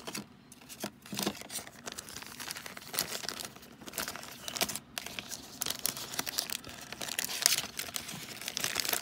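Thin clear plastic bag crinkling and rustling as it is opened and handled by hand, a fast run of sharp crackles and rustles.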